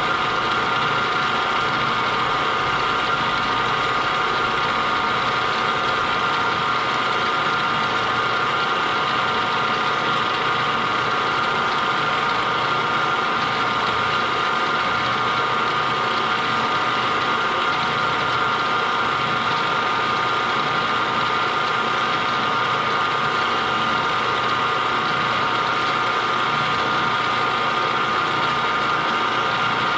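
Machine tool running a cutter at about 450 RPM, slitting a bushing with the feed turned by hand. The sound is steady, with a high tone.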